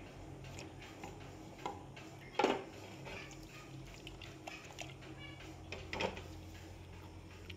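Metal spoon and aluminium cooking pot knocking and clinking as the pot of curry is stirred and shaken, a few clunks with the loudest about two and a half seconds in, over a low steady hum.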